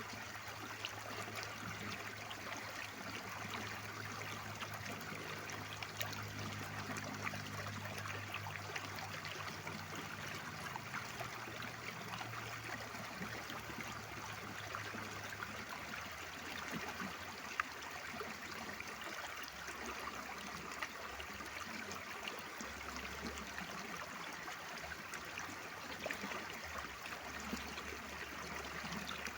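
Mountain stream water flowing steadily, a continuous even rush.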